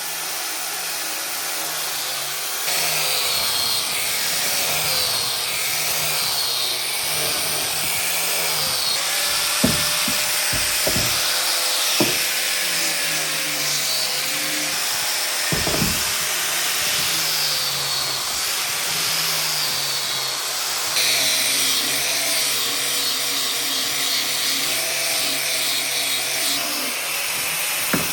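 An electric power tool running steadily on wood, its pitch wavering under load, with a few sharp knocks about ten, twelve and sixteen seconds in.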